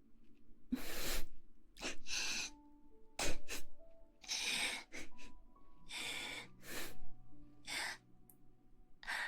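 A string of short, breathy puffs and hisses close to the microphone, coming irregularly about once a second, over soft background music with long held notes.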